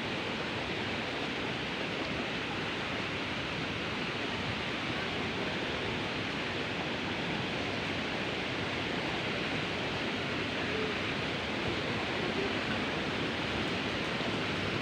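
Steady roar of rushing water from a waterfall or mountain stream, an even rush with no breaks.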